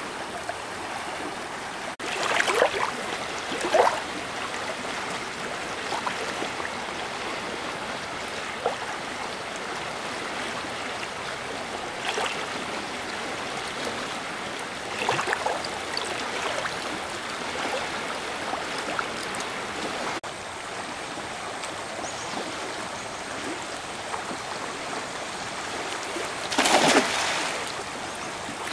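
Stream water running steadily, with short splashes in the water a few seconds in, about halfway through, and near the end, the loudest near the end.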